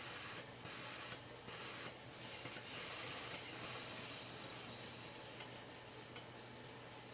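Carb cleaner hissing out of a fuel injector as a battery pulses the injector open. The spray cuts in and out a few times in the first two seconds, then runs steadily for about three seconds and fades away as the pressure drops.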